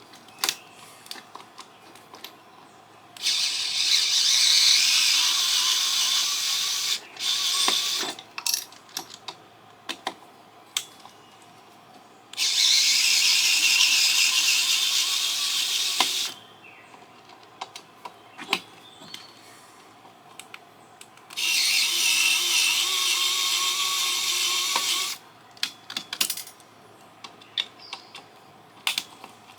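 A small power tool such as a cordless drill-driver runs in three bursts of about four seconds each, plus one brief burst, with a faint whine. Light clicks and knocks from parts being handled come between the bursts.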